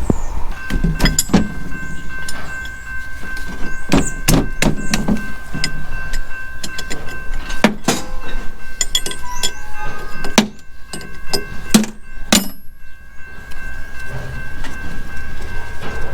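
Repeated sharp metallic knocks and clanks of tools and parts being handled, over a steady high-pitched whine.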